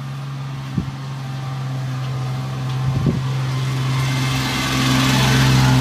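A small van approaches from behind and passes close on a wet road. Its engine runs at a steady note, and the engine and tyre hiss grow louder toward the end as it comes alongside.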